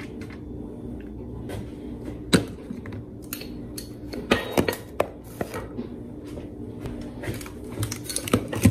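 Kitchen handling sounds: a spatula stirring and tapping in a foil-lined baking pan, then a seasoning canister shaken over it and set down on the counter. Scattered clicks and knocks, bunched about halfway through and near the end, over a steady low hum.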